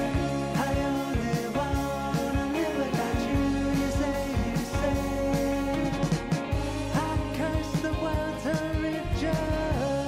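Background song with a singing voice over a steady drum beat.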